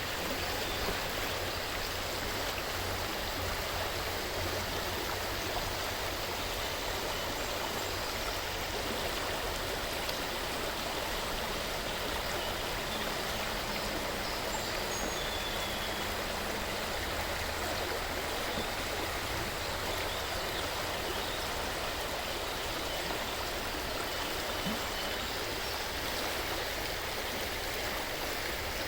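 River water flowing over rocks in a steady, continuous rush and babble.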